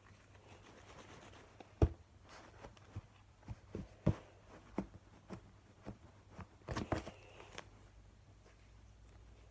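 Sticky homemade Blu Tack slime being kneaded and stretched by hand, giving an irregular string of sharp clicks and pops. The loudest pop comes about two seconds in, and there is a quick cluster of them near seven seconds.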